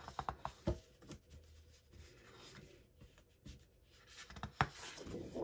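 Sheets of 12-by-12 patterned scrapbook paper being handled on a desk: a few soft taps and slides in the first second, then a louder rustle near the end as a sheet is lifted and flipped aside.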